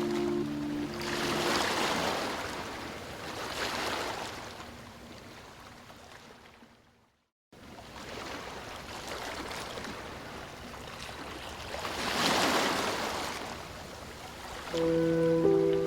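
Ocean surf washing onto a beach, the noise swelling and ebbing with each wave; it fades to a brief silence about seven seconds in, then comes back. Soft sustained music notes sound at the very start and again near the end.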